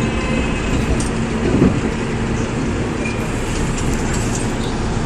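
Inside a Seoul Metro 4000-series electric train with Mitsubishi GTO VVVF drive: a steady rumble with a faint, even hum.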